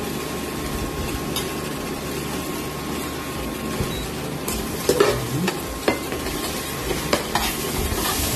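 Sardine sauce sizzling in a nonstick frying pan; from about halfway a metal slotted spatula stirs and scrapes it, with a run of sharp clicks against the pan.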